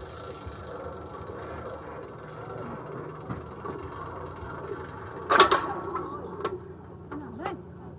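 A loud rattling clatter about five and a half seconds in, then a few lighter knocks, over a faint steady mechanical whir.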